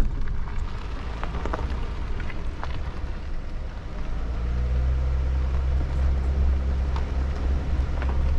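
Ram ProMaster camper van's engine running with a steady low hum, heard from inside the cab. The hum strengthens about four seconds in, with a few light clicks over it.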